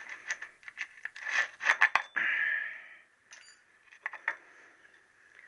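Metal motorcycle parts and hand tools being handled in a workshop: a run of clicks, scrapes and clinks, with a sharp knock about two seconds in followed by a short rustle, then a faint ringing clink and a few quieter taps.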